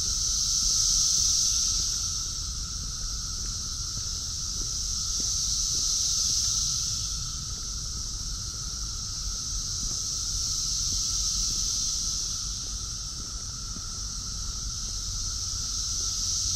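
Chorus of Brood X periodical cicadas: a steady high buzz that swells and fades in waves about every five seconds, over a lower, steady drone.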